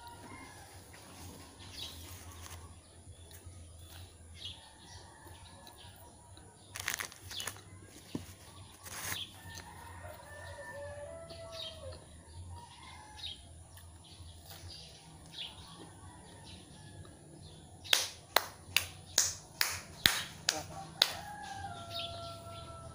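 A quick run of about eight sharp hand claps or pats near the end, as if brushing crumbs off the hands. There are a few single knocks earlier, and faint bird calls, including short falling notes.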